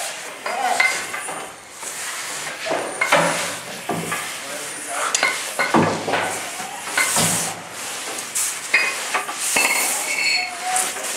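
Firefighters in turnout gear and breathing apparatus crawling through a search drill: irregular scraping, knocking and clanking of gear and air cylinders against the floor and walls, with bursts of hiss from their air masks.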